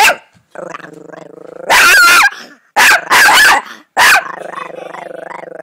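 Small Chihuahua growling continuously in a low rumble, broken by several loud, sharp barks in the first four seconds.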